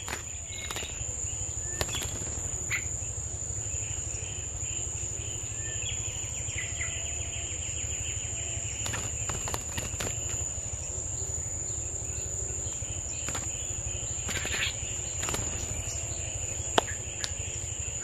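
Outdoor insect chorus: one steady high-pitched insect drone throughout, with a lower buzzing trill that comes in about three seconds in and fades near the end, over a low rumble and a few sharp clicks.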